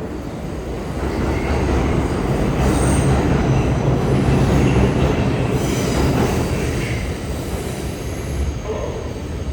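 New York City Subway R62A train running on the rails: a low rumble that builds over the first few seconds, peaks about halfway and then eases, with brief high wheel squeals about three and six seconds in.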